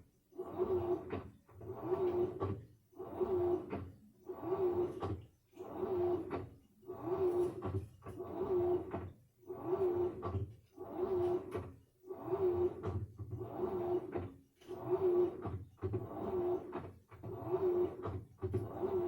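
Samsung washing machine agitating a load: a motor whine with a swishing wash in short, even strokes, about one every 1.2 seconds, with brief pauses between.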